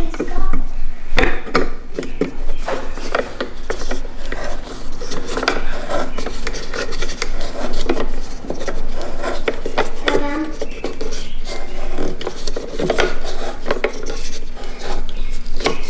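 Roof crossbar foot being tightened down by hand with a small tool: a busy run of short clicks and scraping of metal against the plastic and metal bracket.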